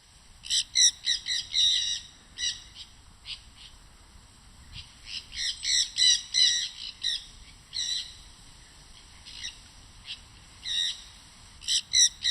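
Birds calling: clusters of short, sharp chirps in quick runs, with pauses of a second or two between runs.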